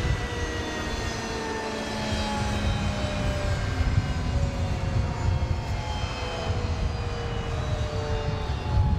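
HAL Tejas fighter's single jet engine, a General Electric F404, running loudly in a low rumble, with whining tones that slowly fall in pitch as the jet passes.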